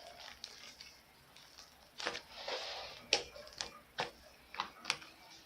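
Slime with EVA foam clay worked into it being kneaded by hand: a string of short sticky clicks and pops, with a longer squelch about two seconds in.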